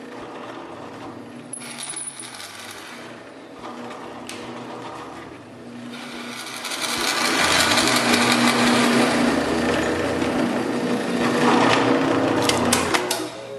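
Electric drill running with a steady motor hum, its bit boring into a wooden whistle blank; the cutting gets much louder about halfway through and stops with a few clicks near the end.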